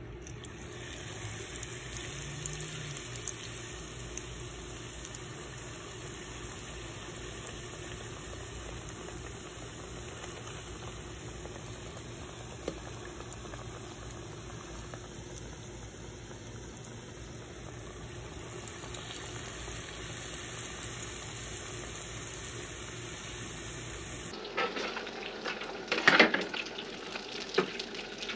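Beer-battered walleye frying in the hot oil of an electric deep fryer: a steady bubbling sizzle. Over the last few seconds come several louder clanks and crackles as the fryer's wire basket is handled in the oil.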